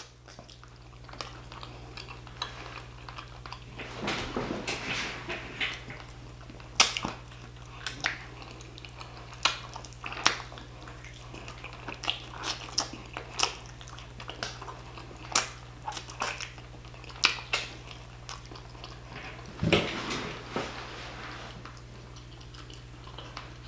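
Close-miked eating of braised oxtail by hand: chewing and biting meat off the bone, with many short wet smacks and clicks scattered throughout.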